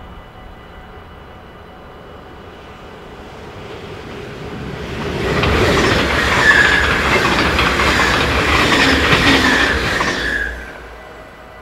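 Yellow-and-blue NS double-deck passenger train passing a level crossing at speed: the rumble builds over a few seconds, then about five seconds of loud wheel clatter on the rails with a brief wheel squeal, ending abruptly as the last carriage clears about ten seconds in. The crossing's warning bell rings steadily underneath.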